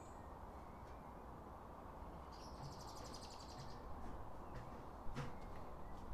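Wind rumbling steadily over a garden, with a small bird giving one rapid, high trill of chirps lasting about a second and a half a little over two seconds in. A couple of faint sharp clicks come near the end.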